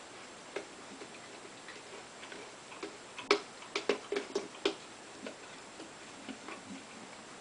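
A dog pawing and licking at a peanut butter jar on a tile floor: light clicks and taps of the jar, claws and tongue, with a quick run of sharper knocks around the middle.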